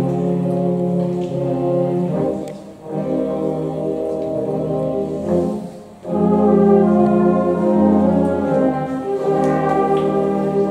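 Concert band playing sustained brass chords in phrases, with a brief dip about two and a half seconds in and another just before six seconds. The phrase after the second dip is louder.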